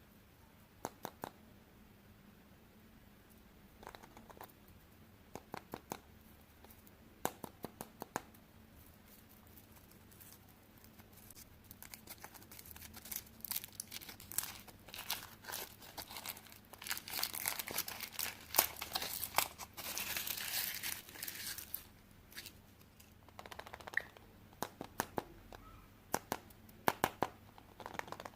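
A Kinder chocolate egg's wrapper being handled and torn open. Scattered sharp crinkles through the first twelve seconds build into dense, continuous crinkling and tearing until about twenty-two seconds in, then thin out to scattered crackles again.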